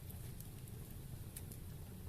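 Wood fire burning in a fireplace: a steady low rumble of flames with a few sharp crackles and pops of the burning wood, the loudest about one and a half seconds in.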